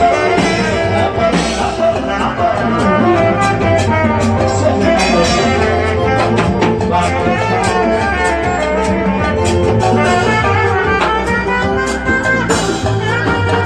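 Live band playing upbeat dance music, a saxophone leading over conga drums and a strong bass line with a steady beat.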